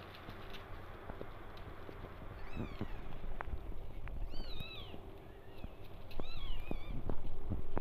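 Newborn kittens mewing: several thin, high-pitched cries, each rising and falling, more frequent in the second half. Soft rustling and a few light knocks run underneath.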